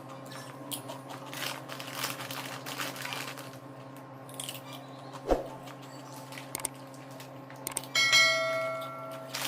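Potato chips crunching as they are chewed and handled, with a single thump about five seconds in. Near the end comes a short bell-like ringing tone that fades out, and it is the loudest sound.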